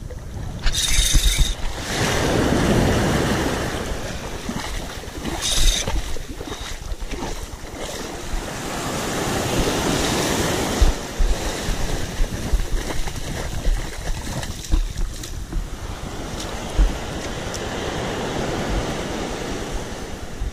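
Small surf washing in and out over the shallows at the water's edge, swelling and fading every several seconds, with wind buffeting the microphone. Two short hissing bursts come in the first six seconds, and there are scattered low knocks.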